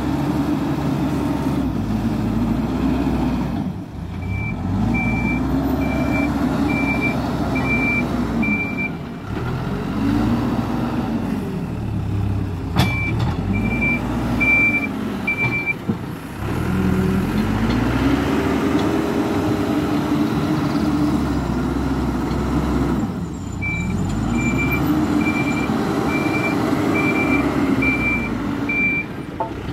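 Hidromek 102S Supra backhoe loader's diesel engine revving up and down again and again as the machine works the dirt pile. Its reversing alarm beeps about twice a second during three stretches while it backs up. A single sharp knock comes about halfway through.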